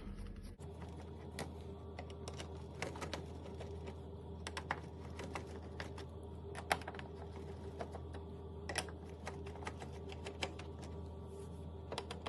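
Small, irregular clicks and taps of screws being undone from the plastic cover of a roller garage door's bottom-edge transmitter, over a steady low hum.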